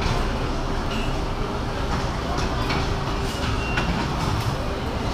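Steady din of a cigar factory's rolling floor: a continuous machine-like hum and hubbub, with scattered light clicks and taps.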